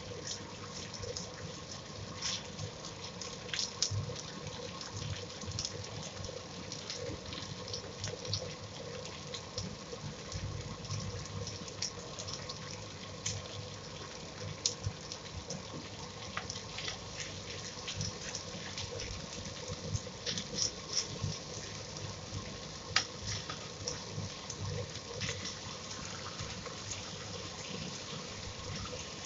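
Marinated pork steaks sizzling in hot oil in a non-stick frying pan, a steady hiss with frequent sharp crackling pops.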